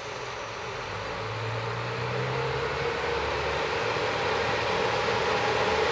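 Diesel railcar's engine running with rail and wheel noise, growing steadily louder as the train approaches.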